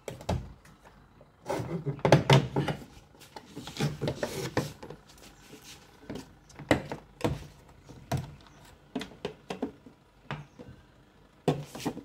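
A twin-tub washing machine's plastic cover panel being handled against the machine body: a run of knocks and clatter, loudest about two seconds in and again about four seconds in, then scattered single knocks.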